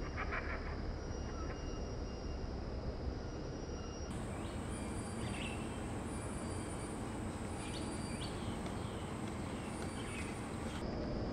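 Outdoor ambience: a steady low rumble under a constant high-pitched whine, with a few faint short chirps. The sound changes abruptly about four seconds in and changes back near the end.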